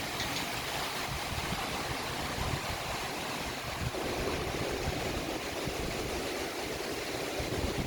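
Strong gusty wind blowing through trees, buffeting the microphone with a low rumble under a steady rushing hiss.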